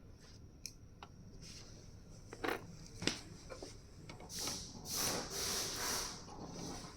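Workshop handling of small metal diesel injector parts: a few sharp clicks and taps, then hissing for about two seconds, from roughly four seconds in.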